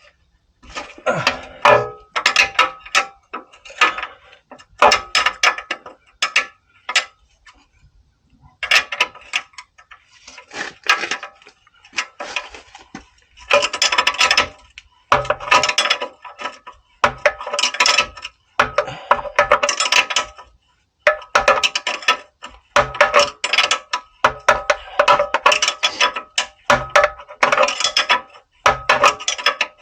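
A hand ratchet wrench clicking in repeated runs of a second or two, with short pauses between them, as a nut is worked loose to release the suspension ball joint on a Range Rover L322's front axle.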